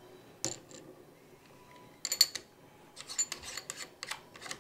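Metal quick connector of a robot-arm gripper clicking and clacking as the gripper is seated on the arm's wrist flange and twisted into place: one sharp click about half a second in, a quick cluster of clicks around two seconds, then a run of clicks and rattles near the end.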